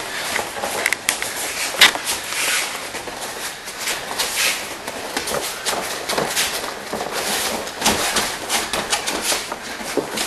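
Grapplers scuffling on a mat: irregular rubbing, scuffs and slaps, with one sharp slap about two seconds in.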